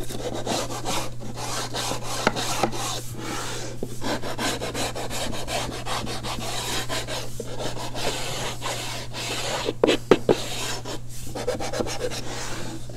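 Hand sanding block rubbed in repeated strokes along the edges and corners of a Baltic birch plywood drawer box, breaking the sharp edges. A few light knocks come about ten seconds in, over a steady low hum.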